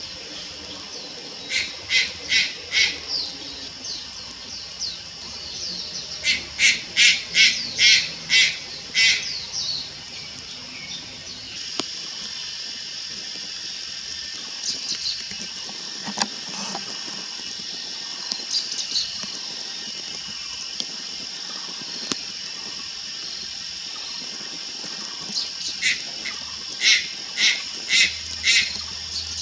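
Juvenile Malayan night heron calling in runs of short, rapid notes: about five near the start, about eight a third of the way in, and about six near the end, over a steady high-pitched hiss.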